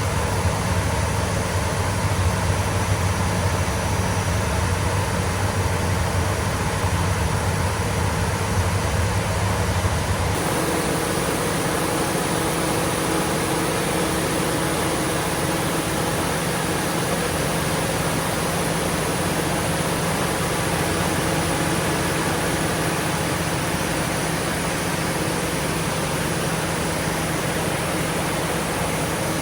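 Caterpillar C27 V12 diesel generator set running steadily, a continuous engine drone with a steady hum. About ten seconds in the sound changes abruptly: the deep low hum falls away and a different set of steady tones takes over.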